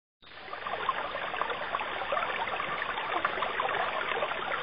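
Steady sound of running water, like a small stream trickling, fading in just after the start.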